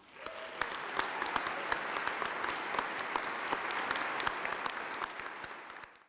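Audience applauding: many hands clapping together, swelling within the first second, holding steady, then fading just before an abrupt cut to silence.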